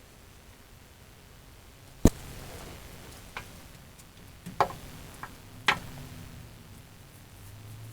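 A handful of sharp, separate knocks and clicks, the loudest about two seconds in and two more strong ones near the middle, over a low steady hum.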